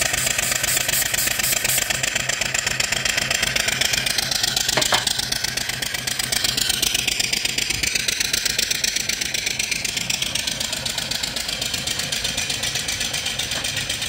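Antique-reproduction steam engine with a 3-inch bore and 4-inch stroke running with its cylinder drain valves open, blowing steam and water out of the cylinder in a loud, rapidly pulsing hiss that keeps time with the strokes. This is the cylinder being cleared of condensate. The hiss eases off gradually over the second half.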